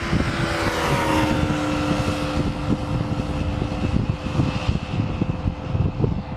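Twin-engine jet airliner passing close, its engine whine falling in pitch about a second in and then holding steady, with gusts of wind buffeting the microphone.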